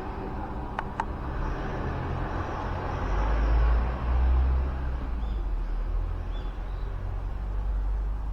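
A vehicle passing close by: a low rumble that swells to its loudest around three to four and a half seconds in, then eases off, with two sharp clicks about a second in.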